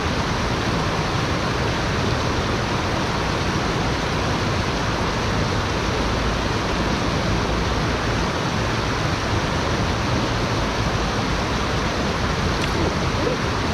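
Shallow rocky stream rushing steadily over a small rapid.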